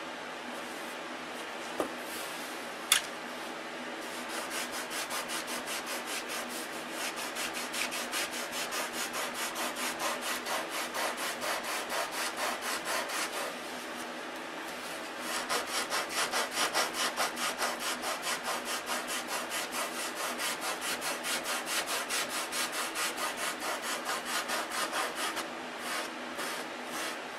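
Hand sanding block with sandpaper rubbed back and forth over a balsa block wingtip, about two to three strokes a second, in two long runs with a short pause about halfway through. Two sharp clicks come a couple of seconds in, before the sanding starts.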